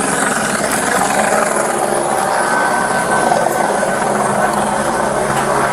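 Police helicopter hovering overhead, its rotor and turbine making a loud, steady drone.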